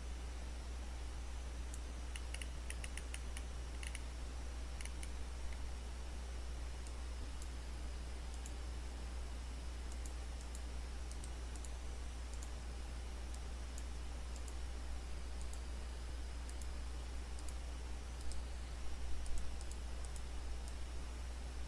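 Scattered clicks of a computer mouse and keyboard, with a quick run of clicks between about two and five seconds in and a few more near the end, over a steady low electrical hum.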